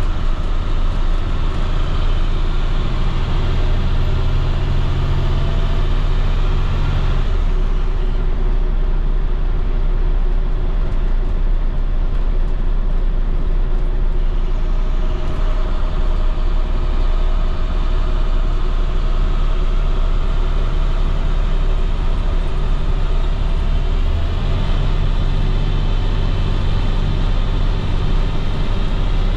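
International MaxxForce DT inline-six turbodiesel of a school bus pulling on the road, with a faint high whine riding on the engine note. About seven seconds in the engine note drops away, leaving mostly road and tyre noise, and it comes back strongly near the end.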